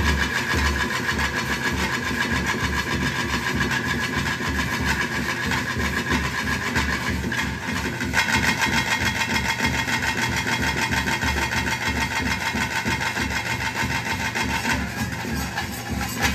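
Ritual drums beating a steady, driving rhythm, with a held high reed-pipe tone over them, as accompaniment to a Tulu daiva-kola dance.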